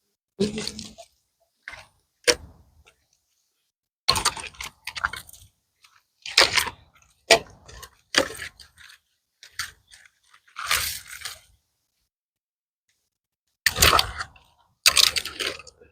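Dry pecan branches and sticks being handled and dropped onto a pile: a string of irregular clatters, crunches and thuds with short pauses between them.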